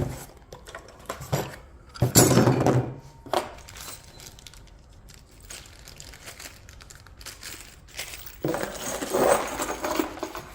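Loose bolts and metal caster parts clinking and rattling as they are handled, with louder bursts of clatter about two seconds in and again near the end.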